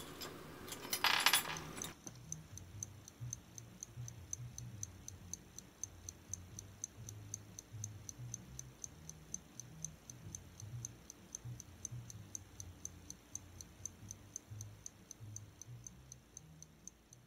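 Small metal clock parts clink and rattle against a steel vise for about two seconds, then a steady clock-like ticking, about three or four ticks a second, runs on with a faint low hum underneath.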